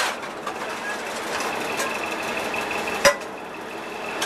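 Metal pans and lids clattering as they are washed and stacked at a stainless steel sink, with one sharp clank about three seconds in, over a steady mechanical hum.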